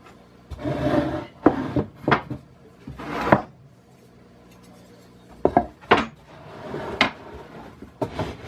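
2x4 lumber being handled on a workbench: a series of sharp wooden knocks and several scrapes of boards sliding against wood, with short pauses between.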